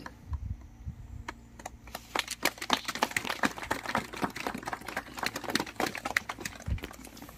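A small crowd clapping as a stone monolith is unveiled: a few scattered claps at first, becoming steady applause from about two seconds in. A few low thumps near the start.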